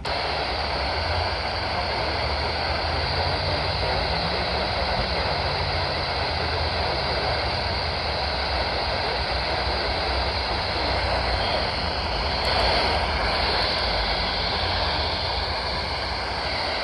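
Steady static hiss from a weather radio receiver on weak reception, with the voice reading a flood bulletin faint and mostly buried beneath it.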